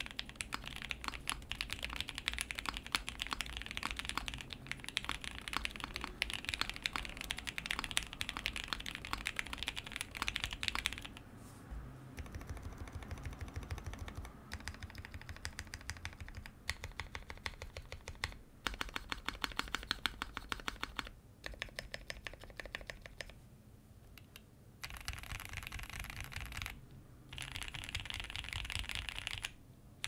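Custom gasket-mount mechanical keyboard (ai03 Polaris, POM half plate) with lubed and filmed Gateron Black Ink linear switches and GMK keycaps, typed on in a steady run of keystrokes. About a dozen seconds in it turns to slower, separate presses of the modifier keys (space bar, enter, shift, backspace) on lubed Durock screw-in stabilizers. Near the end fast typing on the home-row letters resumes.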